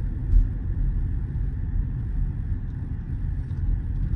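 Steady low rumble inside the cabin of a Mercedes-AMG GLE 53 creeping through traffic, with one short thump about half a second in.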